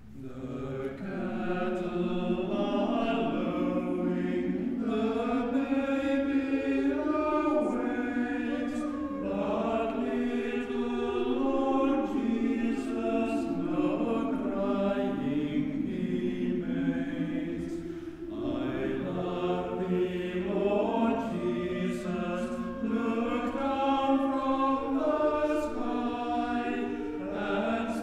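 Mixed chamber choir of men and women singing in parts, in a church. The voices come in just after a brief hush at the start and pause briefly between phrases about 18 seconds in.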